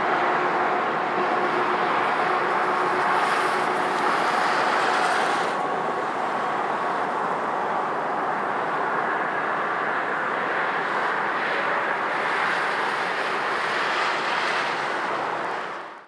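GE AC4400CW diesel locomotive, running as the rear remote unit of a long freight train as it pulls away, with the wheels rolling on the rails, mixed with steady highway traffic. A faint engine tone in the noise fades out about five seconds in, and the sound cuts off at the very end.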